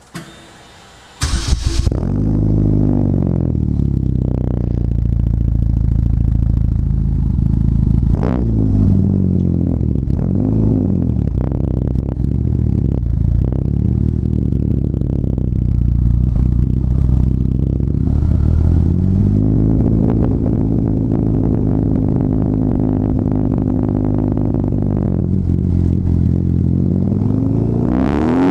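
Turbocharged 2009 Chevy Cobalt SS's four-cylinder engine through a straight-piped, muffler-deleted 3-inch exhaust: it starts about a second in, then idles loudly with short rev blips every few seconds and another rev near the end.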